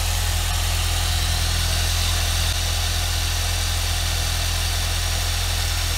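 Ford Fiesta ST150's 2.0-litre four-cylinder engine idling steadily from cold, with the coolant header tank cap off while air is bled from the cooling system.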